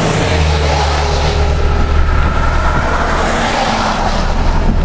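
Car driving: steady engine and road noise with a strong low rumble and a broad hiss above it.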